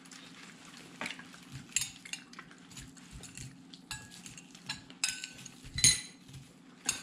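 Cutlery clinking against plates and bowls while eating: a scattered run of light clicks and taps, with a louder knock about six seconds in.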